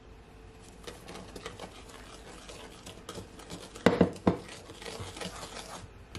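Wooden spoon stirring flour into a wet butter and sugar mixture in a glass mixing bowl: soft scraping and light tapping, with two louder knocks about four seconds in.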